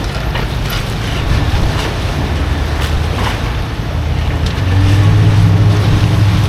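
A boat engine running, growing louder about four and a half seconds in, over wind and waves.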